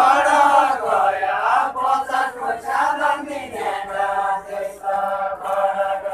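A group of voices singing a Deuda folk song together in a chanted chorus, with long, drawn-out lines that waver in pitch.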